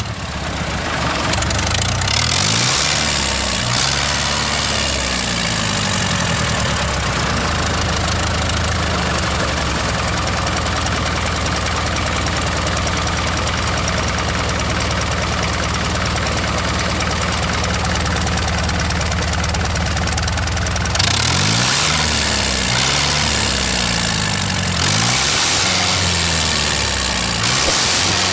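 Engine of a DIY mini tractor running steadily at idle with an even drone; about two-thirds of the way through, its pitch starts wavering up and down.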